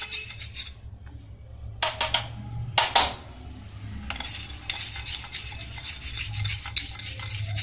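A steel spoon stirring lemon juice and coconut oil in a small bowl, with two sharp clinks against the bowl about two and three seconds in, then quick, continuous scraping from about four seconds in. A steady low hum runs underneath.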